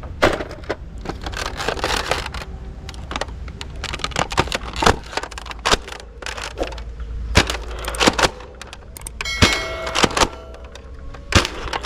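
A toy sniper rifle being handled, giving a long series of sharp plastic clicks and clacks. A brief ringing tone sounds about nine and a half seconds in.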